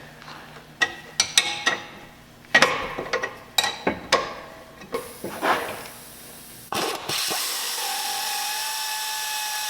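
Metal clicks and clanks of hand tools working a car's sway bar link nut, then about seven seconds in a power tool starts and runs steadily with a high whine.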